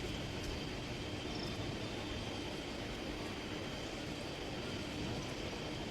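Steady background noise with a low, even hum.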